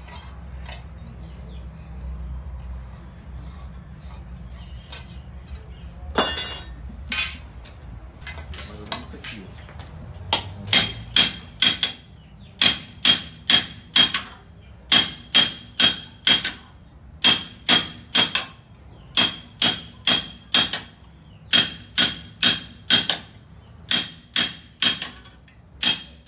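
Coppersmith's hand hammer striking a small copper dish on a steel stake anvil. There are scattered light taps for the first ten seconds or so, then steady ringing metallic blows, about three a second, in runs of three or four with short pauses.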